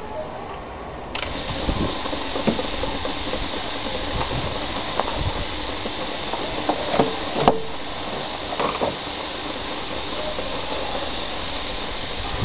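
Danfoss hermetic refrigerator compressor, converted into a vacuum pump, switched on about a second in and running with a steady hiss of air. A few short clicks come from its hoses and fittings being handled.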